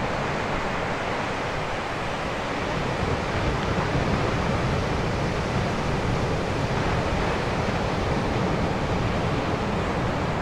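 Atlantic surf washing onto the beach in a steady roar of noise, with wind rumbling on the microphone.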